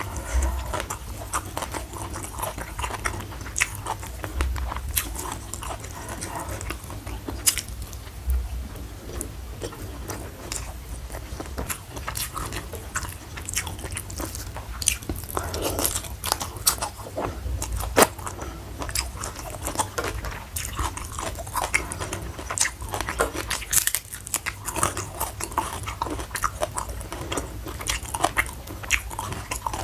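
Close-miked eating: a person biting and chewing food, with frequent irregular crunches and wet mouth clicks.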